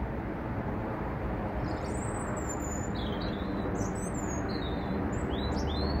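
European robin singing high, thin, quickly changing warbled phrases, starting a couple of seconds in, over a steady low background rumble.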